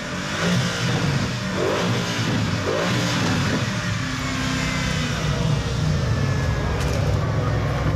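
Mercedes-AMG GT's twin-turbo V8 running at low revs as the car creeps forward, a steady deep rumble with no hard revving.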